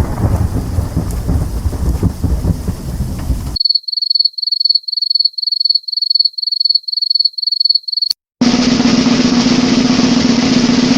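A run of edited sound effects: a dense rumbling noise, then about three and a half seconds in a string of short, high electronic beeps about two a second, then after a click a loud, steady, harsh low-pitched buzz like a buzzer.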